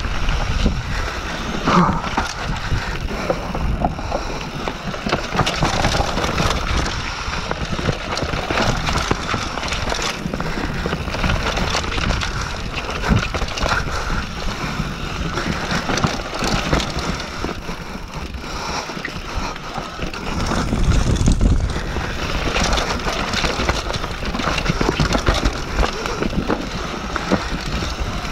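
Mountain bike descending a dirt singletrack at speed: tyres running over dirt, roots and rocks, with the bike rattling and knocking over the bumps and wind on the microphone. A rougher, louder stretch comes about two-thirds of the way through.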